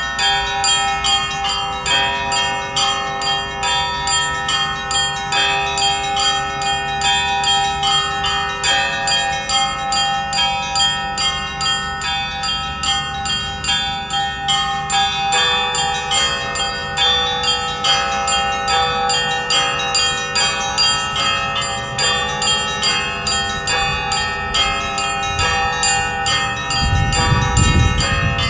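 Russian Orthodox church bells ringing a festive peal: several bells of different pitch struck over and over in a quick, steady rhythm, their tones ringing on together. A low rumbling noise comes in near the end.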